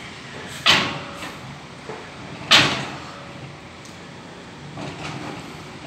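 Two loud metal clanks about two seconds apart, each with a short ring, as heavy steel LPG cylinders are knocked and set down on a delivery truck's bed.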